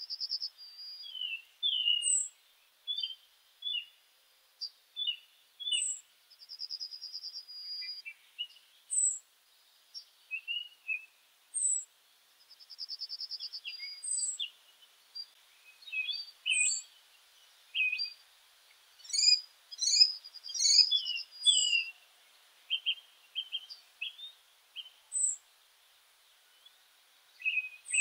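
Birds chirping and singing: short high chirps every two seconds or so, several rapid trills, and a busier stretch of overlapping calls about two-thirds of the way through.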